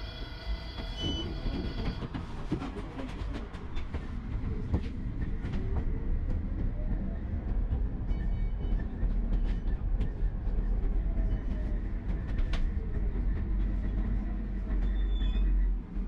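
Tram running along its rails: a steady low rumble with rattling and clicks and knocks from the wheels over the track. A steady high tone sounds for about the first two seconds, and the rumble drops away suddenly just before the end.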